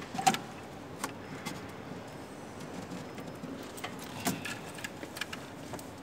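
Irregular clicks and light rattles of wires and plastic connectors being handled at a controller board's terminals, the loudest just after the start and about four seconds in, over a steady background hiss.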